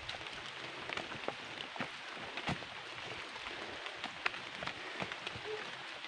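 Footsteps on a forest trail, with scattered crackles and ticks of leaves and twigs underfoot several times a second over a steady hiss.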